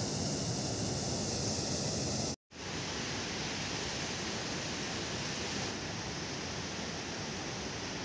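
Steady rush of water from a waterfall and its rapids, broken by a sudden brief gap of silence about two and a half seconds in, after which the same steady rush resumes.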